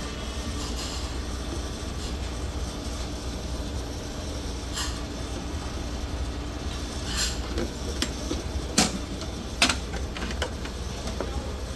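Steady low rumble and hum of restaurant ambience, with a handful of sharp clinks of tableware in the second half.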